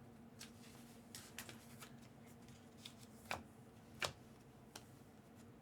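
Faint rustle and soft clicks of Panini Prizm football trading cards being slid and flipped through by hand, with two sharper clicks a little past the middle, over a faint steady hum.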